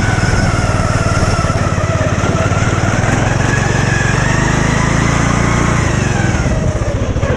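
Lawn mower engine running steadily under load; its pitch rises a little through the middle and drops back about six seconds in.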